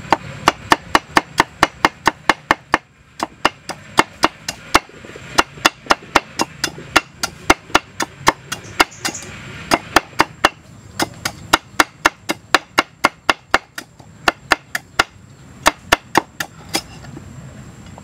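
Large knife slicing galangal root on a thick wooden chopping block: quick knocks of the blade on the wood, about four a second, in runs with short pauses, stopping shortly before the end.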